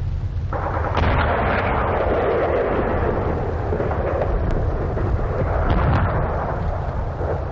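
Artillery fire in a 1944 battlefield field recording. A loud blast comes about a second in, followed by a long rolling rumble of shellfire. A few sharp cracks come near the middle.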